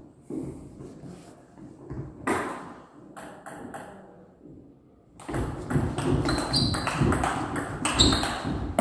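Table tennis ball clicking off the bats and the table: a few separate taps at first, then a fast rally from about five seconds in, with rapid sharp hits and low thuds among them.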